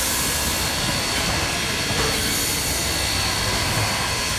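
Steam locomotive standing with a steady hiss of escaping steam.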